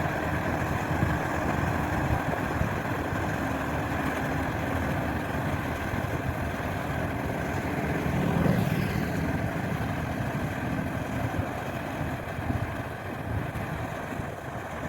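GAM 100 hp rice combine harvester running steadily, its engine and threshing machinery making a dense, even drone that swells briefly about halfway through.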